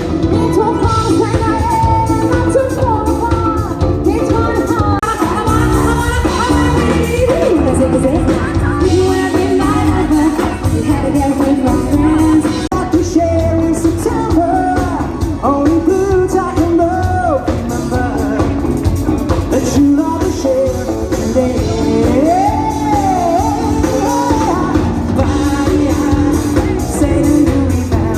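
Live band playing amplified pop-rock with a lead singer, in a large hall.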